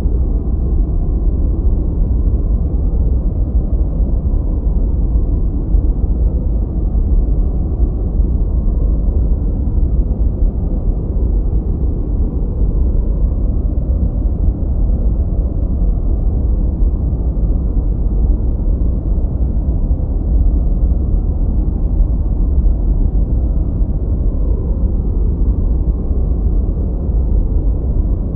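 Gentle white noise for sleep and tinnitus masking: a steady, even, muffled noise, heaviest in the low end with no high hiss, unchanging throughout.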